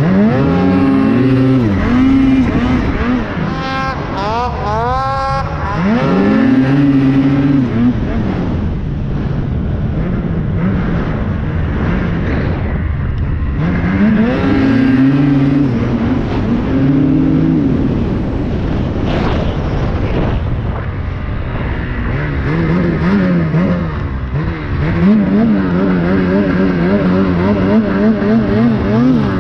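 Ski-Doo Summit snowmobile with its turbocharged two-stroke Rotax 850 E-TEC Turbo R engine, ridden hard. It revs up and down in several surges, rising and falling in pitch, and wavers quickly near the end.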